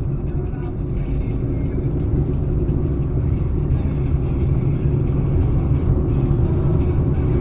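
Steady rumble of a car's engine and tyres on the road, heard from inside the moving car.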